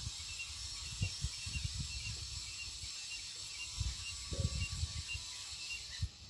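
Outdoor ambience: a steady hiss with irregular low rumbling gusts of wind on the microphone, and faint short bird chirps repeating through the first few seconds.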